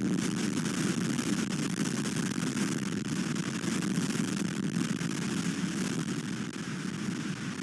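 High wind buffeting an outdoor nest-cam microphone: a steady low rumble with a hiss over it.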